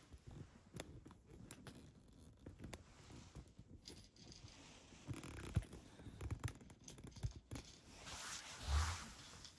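Cat eating from its dish: quiet, irregular clicks and scrapes, with a louder rustle near the end.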